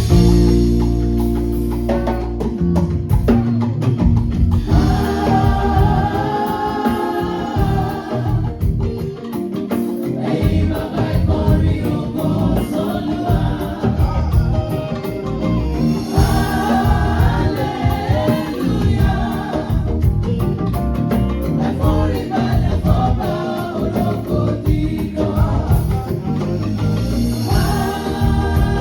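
Choir singing gospel music over drums and bass, in sung phrases separated by short instrumental stretches.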